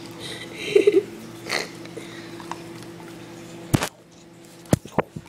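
A dog giving a short, rapid grunting growl as it tussles with an iPod, then a few sharp knocks and clicks on a tile floor near the end. A steady low hum stops about four seconds in.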